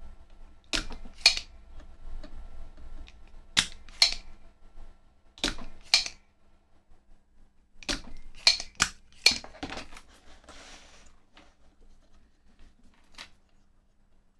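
Sharp clicks and snaps from a hand tool working at tantalum capacitors on a circuit board to pop them out, several coming in pairs about half a second apart, with a short scrape past the middle.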